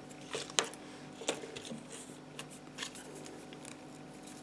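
Small plastic clicks and taps as a car key fob's plastic shell and circuit board are handled and fitted together, with two sharper clicks about half a second and a second and a quarter in, over a faint steady hum.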